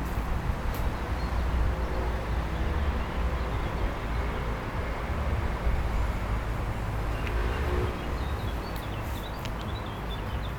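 Outdoor wind buffeting the microphone, a steady low rumble, with faint bird chirps in the second half.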